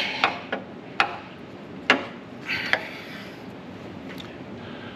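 Hand tool clicking and knocking against metal engine parts, four short sharp knocks about a second apart, as it is worked free of a just-tightened 6 mm bolt.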